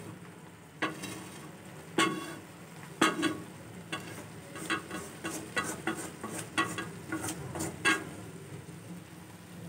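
Wooden spatula stirring cooked cauliflower greens in an aluminium kadhai, knocking against the metal pan a few times and then in a quicker run of knocks in the middle. The greens sizzle softly underneath.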